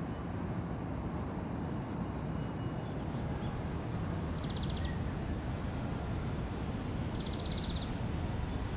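Outdoor ambience: steady low background noise with a few short high bird chirps and two brief buzzy trills in the second half.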